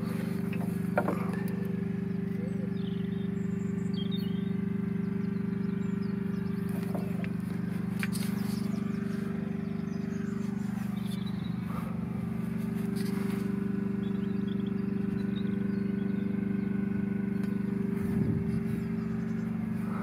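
A steady, low engine hum at a constant pitch, with birds chirping faintly now and then.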